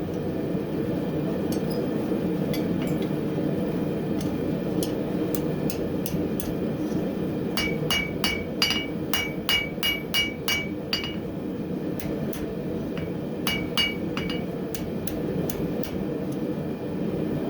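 Hammer blows ringing on an anvil as a piece of coil-spring steel is forged into a flint striker: scattered lighter taps, a quick run of about three strikes a second in the middle, and a shorter run later. The forge runs with a steady roar underneath.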